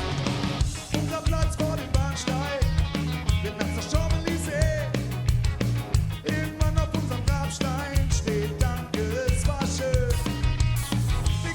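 Ska-punk band playing live: drums, bass and guitars in a steady, driving rhythm under a wavering melody line.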